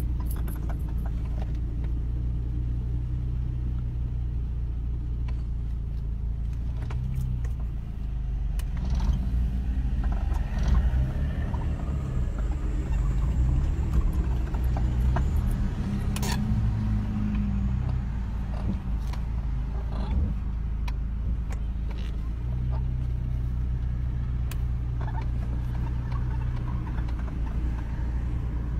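Kia Sportage 2.0 engine idling at about 1000 rpm, heard from inside the cabin. The idle wavers in pitch and runs a little louder for several seconds mid-way, then settles back to a steady hum.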